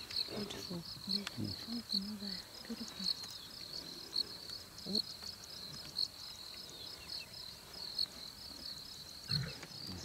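Cricket-like insect calling steadily, a high-pitched pulsing trill, with low murmurs in the first few seconds.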